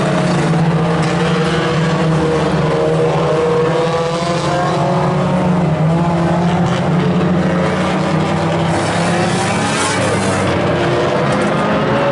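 Several oval-track saloon race cars running hard around the circuit, their engines overlapping and rising and falling in pitch as they accelerate, lift off and pass.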